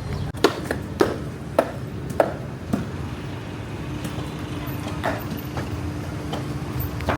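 A cleaver chopping on a chopping block: five sharp chops about every half-second, then a few more, more loosely spaced, near the end, over a low rumble of street traffic.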